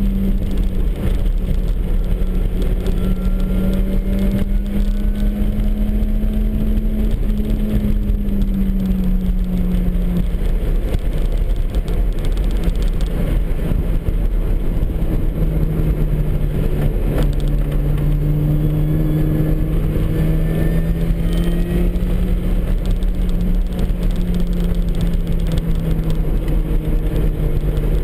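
Supercharged four-cylinder engine of a MINI Cooper S running hard at speed, its pitch easing down about eight seconds in, dropping again around halfway, then slowly climbing. Heavy road and wind rumble sits under it, with a faint rising whine above.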